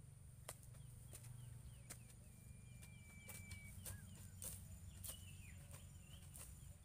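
Hoe blades striking into soft soil, scattered sharp thuds roughly once a second from several hoes working at once. Faint birdsong, short chirps and one held whistle, sits behind them over a low steady rumble.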